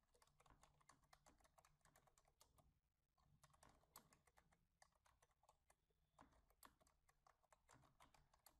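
Faint computer keyboard typing: a quick run of keystroke clicks, with a short pause about three seconds in.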